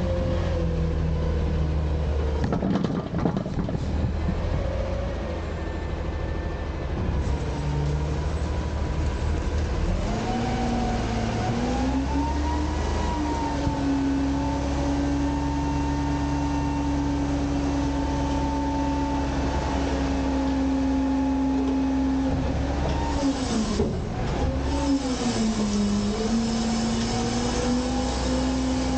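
Autocar/Heil front-loader garbage truck's diesel engine running under hydraulic load. About ten seconds in it revs up and holds a high, steady pitch while the packer compacts trash in the hopper. The revs dip briefly a little before the end, then rise again.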